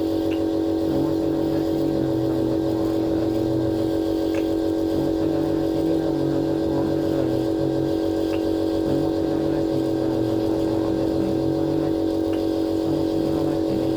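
Nebulizer's air compressor running with a steady, even buzzing hum.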